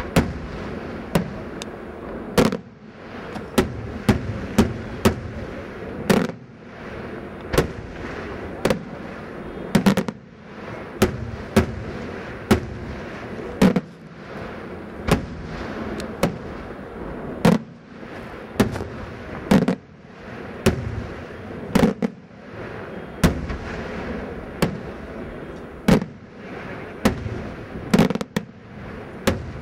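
Daytime aerial fireworks shells bursting overhead in a steady, irregular stream of sharp bangs, about one a second, with an echoing rumble between the detonations.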